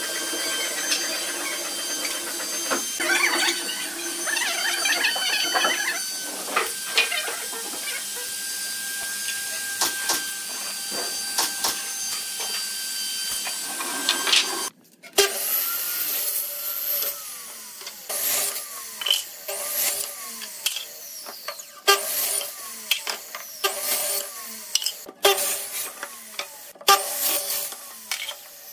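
Wooden planks being handled and moved, with scrapes and knocks of the wood. Sharp knocks come more often in the second half.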